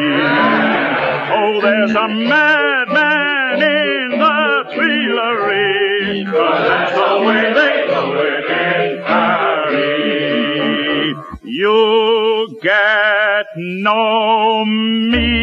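Song from a 1940 film-musical soundtrack: singing with a wide vibrato over an orchestra, with a fuller ensemble passage in the middle.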